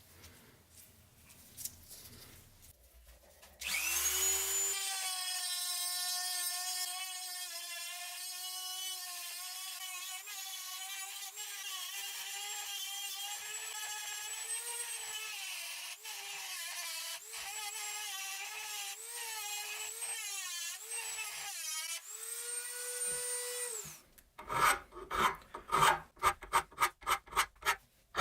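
A small power tool motor spins up about four seconds in and runs for some twenty seconds, its pitch wavering and dipping as it is worked under load. The pitch rises briefly just before it shuts off. A quick run of scraping strokes by hand follows, about three a second.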